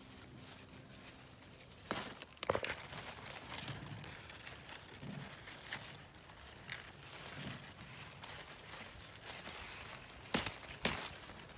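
Bean plant leaves rustling and brushing against the phone as a hand moves through the foliage. There are a few sharp knocks about two seconds in and two more near the end.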